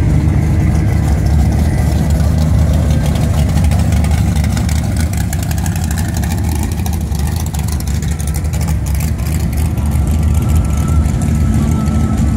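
Deep exhaust rumble of classic cars and hot rods crawling past at idle, among them a V8 hot rod with an open engine and side-exit pipes. A rapid, choppy ticking rides on the rumble from about five to ten seconds in.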